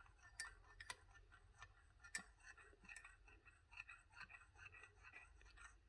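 A spoon stirring in a cup of tea, making faint, irregular clinks against the cup several times a second.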